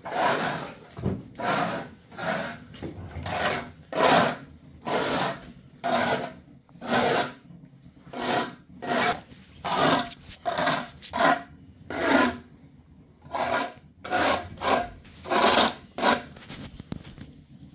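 Repeated rasping scrapes against a hard surface, about one or two strokes a second with short gaps between them.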